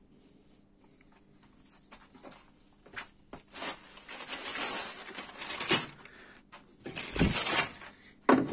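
Handling noise at a workbench: tools and small items rustling and clattering, with a dull thump a little after seven seconds and a short knock near the end.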